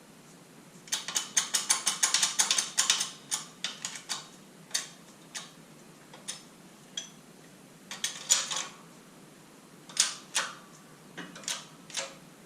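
Ratchet wrench clicking: a quick run of rapid clicks, then single clicks and short bursts as it is worked in strokes.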